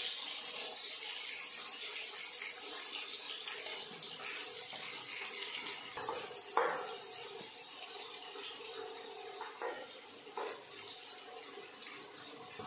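Sliced onions sizzling in hot oil in a non-stick frying pan, the sizzle slowly dying down, with a few knocks of a wooden spatula against the pan as they are stirred, the loudest about halfway through.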